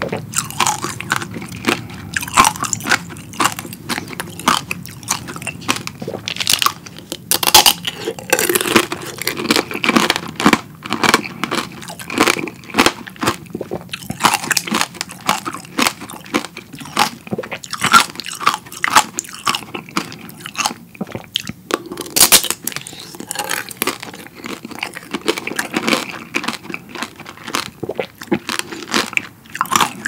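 Strawberry tanghulu being bitten and chewed: the hard candied-sugar shell cracks and crunches between the teeth in many sharp, irregular crackles, along with chewing of the fruit.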